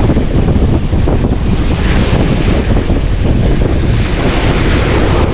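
Strong wind buffeting the microphone, with the sea washing at the shore beneath it.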